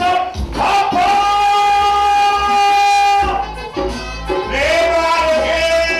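A man singing live into a handheld microphone over a reggae backing track. He holds one long note for about two seconds, then starts another held note near the end.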